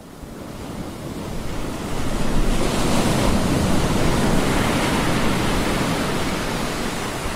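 Ocean surf breaking and washing up a sandy beach: a wash of noise that swells over the first couple of seconds, then slowly eases.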